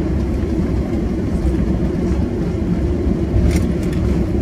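Airbus A330 cabin noise while taxiing: a steady low rumble from the engines and the aircraft rolling over the concrete, with one brief click about three and a half seconds in.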